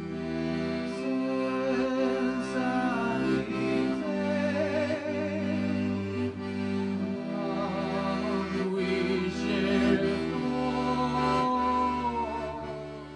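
Accordion music: held chords over a steady bass, with a melody line moving above them, fading out near the end.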